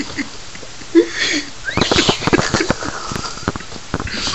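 Rustling and rapid clattering knocks of the camera being handled and moved about, with a short voice sound about a second in.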